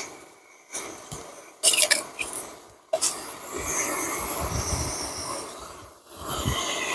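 Cooking in a large metal camp pot: a few sharp clinks and clatters, then about three seconds of steady scraping and stirring.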